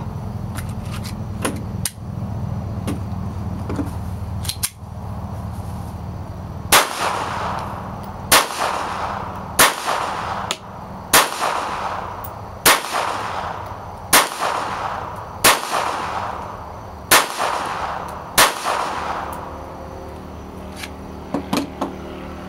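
Makarov 9x18 pistol fired nine times in slow succession, about one shot every second and a half, each shot ringing briefly afterward. Light handling clicks come before the first shot and a few more near the end.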